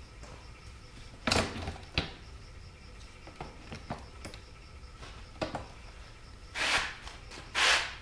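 Hands fitting an electric bike's rear wheel and hub motor into the frame: scattered light clicks and knocks of metal parts, with two louder short scrapes near the end.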